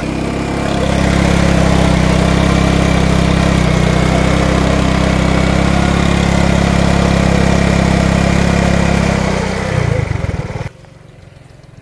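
Small motorcycle engine running steadily under load while its rear tyre spins a tube-well pump's drive pulley by friction. It gets louder about a second in, wavers near the end, then cuts off suddenly.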